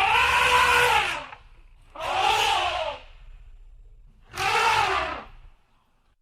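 An animal calling three times, each call a rough, breathy cry about a second long whose pitch rises and falls.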